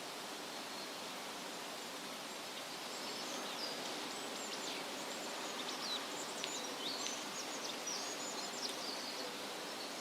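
Forest ambience: a steady rushing hiss, with a songbird chirping in a run of quick, high, sweeping notes from about three seconds in until near the end.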